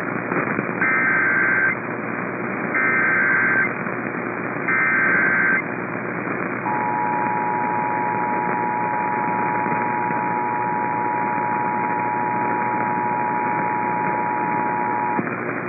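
Emergency Alert System activation heard over a radio, with steady background hiss. It opens with three short bursts of warbling SAME data header about a second apart, then the steady two-tone EAS attention signal sounds for about eight seconds and stops shortly before the end.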